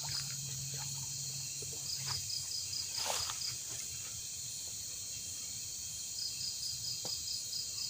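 Night insects in the undergrowth: a steady high insect drone, with crickets chirping in quick pulses, about six a second, in two runs. There is a brief rustle about three seconds in.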